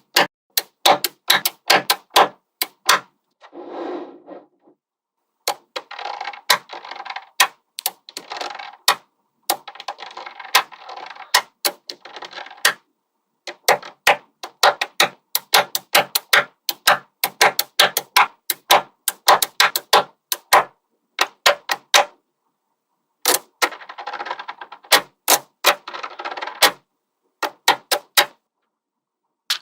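Small magnetic balls snapping together one after another: sharp clicks at irregular spacing, now and then several a second, broken by short stretches of balls rattling against each other.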